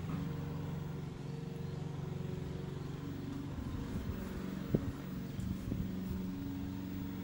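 A motor running steadily with a low hum, with a few faint clicks about two-thirds of the way through.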